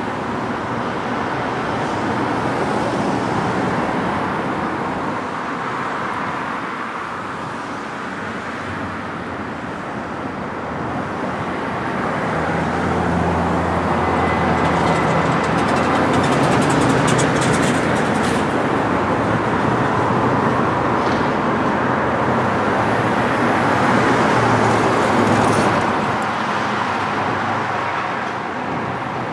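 Continuous rolling rumble and clatter of a double-stack container freight train crossing a steel girder bridge, mixed with cars driving past on the street below; the noise swells for a stretch in the middle.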